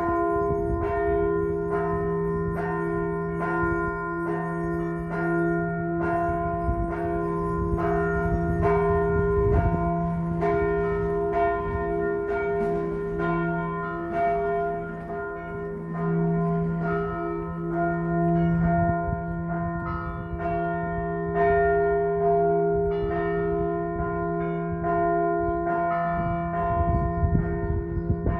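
Several church bells ringing together in a continuous peal. Fresh strokes come roughly every half second, and the bells' tones keep sounding between strikes.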